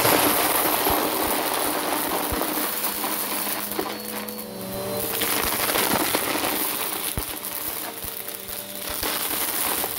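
Bissell Power Force Helix upright vacuum sucking up piles of torn cardboard, paper, plastic tubes and beads from carpet: dense crunching and crackling with scattered sharp clicks of debris rattling into the nozzle, over the steady hum of the motor. The crunching jumps up abruptly at the start as the head pushes into a pile.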